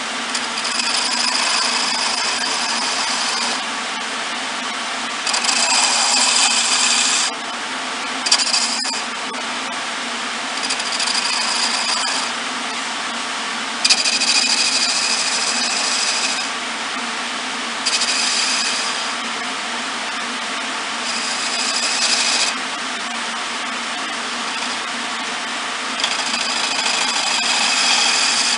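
Wood lathe running with a steady hum while a hand-held turning chisel cuts the spinning wooden spindle in short passes, about eight spells of high scraping of one to three seconds each, as the ends are shaped into small beads.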